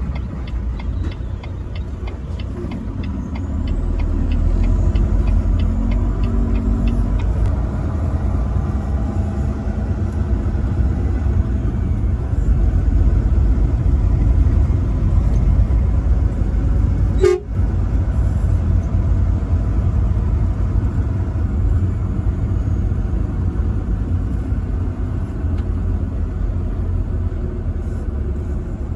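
Semi truck driving: a steady low rumble of engine and road noise that swells about four seconds in. A regular ticking runs through the first seven seconds, and there is one sharp click about seventeen seconds in.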